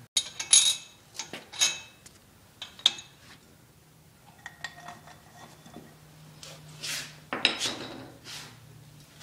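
Metal clinking and clattering as an aluminum bearing race driver and its long handle are fitted into the pinion bearing race of a Ford 8.8 axle housing: several sharp clinks in the first three seconds, a brief metallic ring about four and a half seconds in, and a longer scraping sound near the end.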